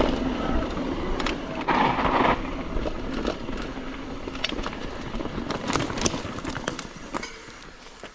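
Mountain bike rolling fast down a dirt trail: tyre noise over dirt and gravel with the bike clattering in many sharp clicks and knocks, over a low rumble. It fades down near the end.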